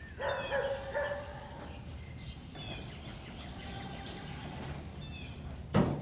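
An animal call at the start, about a second long, then faint bird chirps, and a single loud knock near the end.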